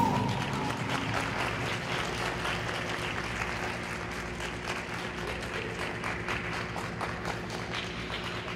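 Audience applauding as the music ends, the clapping thinning out and fading toward the end.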